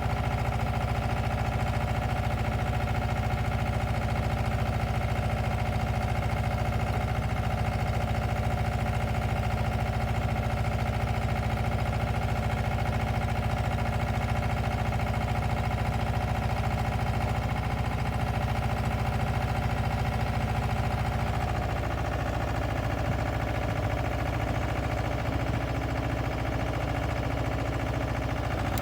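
Diesel engine of an asphalt paver running steadily with an even, unchanging note.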